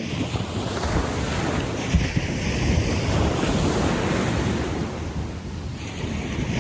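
Small ocean waves breaking and washing up a sandy beach, a wave surging in sharply at the start and hissing on before easing near the end, with some wind rumble on the microphone.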